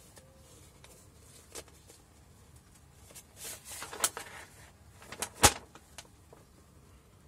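A paper instruction leaflet being unfolded by gloved hands: soft rustling with a few crisp paper snaps, the sharpest about five and a half seconds in.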